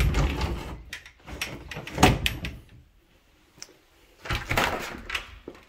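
A door being handled: a run of knocks and clicks with a sharp bang about two seconds in, then another burst of rattling and knocks just past four seconds.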